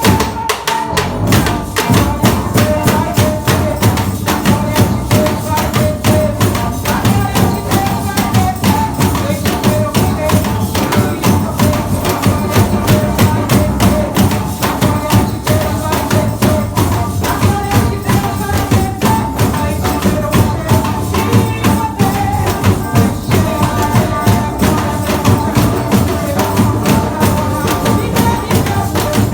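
Percussion band playing a fast, steady rhythm of dense drum and jingle strikes, with a melody line over the beat.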